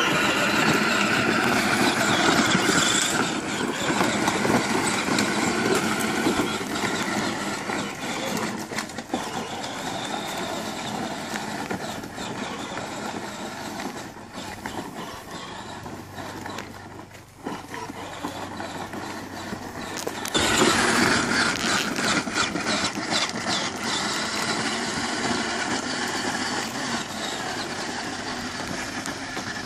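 Battery-powered kids' ride-on toy ATV driving along a dirt trail: its electric drive motors and gearboxes whining steadily as the plastic wheels roll over the dirt. The sound dips briefly past the middle, then comes back louder.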